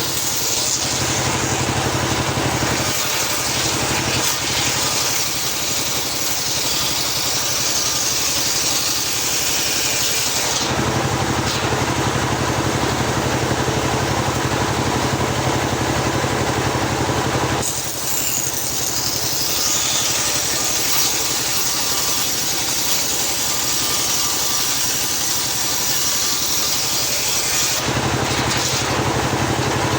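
Homemade circular sawmill running steadily, its blade ripping lengthwise through a teak log. The harsher, hissing sound of the cut comes in twice, for about ten seconds each; in between, the saw runs without cutting.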